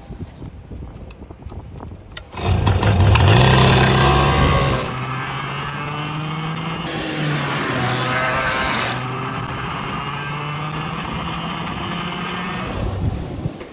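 Racing go-kart's two-stroke engine revving hard about two seconds in, then running steadily at speed on track, dropping away near the end.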